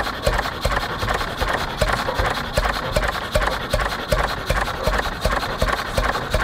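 A 1927 Reilstad 3 hp single-cylinder four-stroke petrol engine with overhead valves is running steadily, firing with an even, regular beat.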